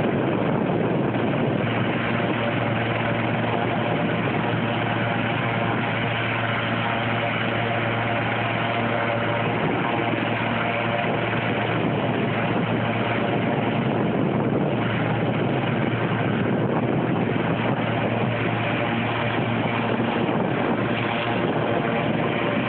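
Medevac helicopter's turbine engines and rotor running steadily on the ground: an even, unchanging hum with several held tones over rotor noise.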